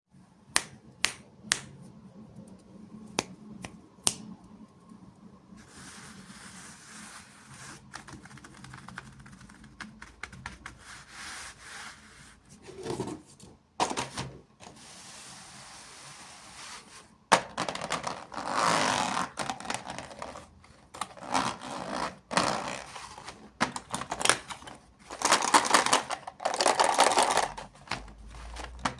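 Close-up handling and unboxing of a miniature toy: a few sharp taps and clicks, then rustling, and from about two-thirds of the way in, louder scraping and rubbing of packaging with many small clicks.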